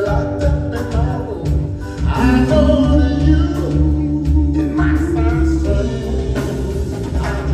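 Live soul vocal group singing with a backing band of bass, drums, keyboard and horns; about two seconds in, a long note is held for about three seconds.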